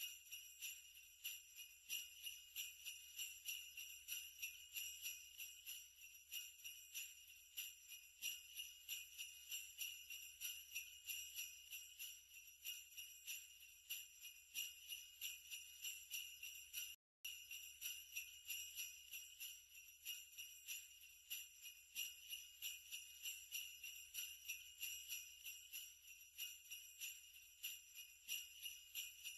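Faint jingle bells shaken in a steady rhythm, about three shakes a second, breaking off for a moment about halfway through.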